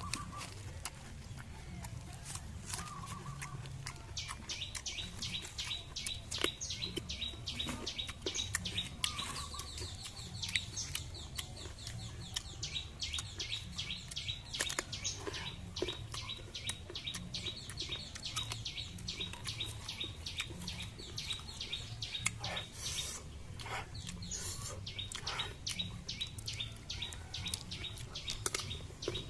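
Birds chirping in a long run of rapid, repeated high notes, with many short sharp clicks scattered through the whole stretch.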